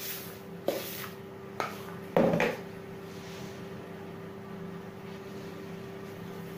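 Several sharp knocks in the first two and a half seconds, the loudest a quick double knock, as a container of crumbly khoriz filling is emptied over the dough; after that only a steady low hum.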